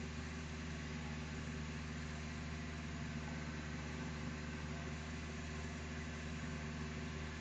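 Steady low mechanical hum as the Volkswagen Gol G2's power window winds the door glass up very slowly in its new channel rubbers. The owner takes the slowness for the motor lacking power, calling for a relay and harness.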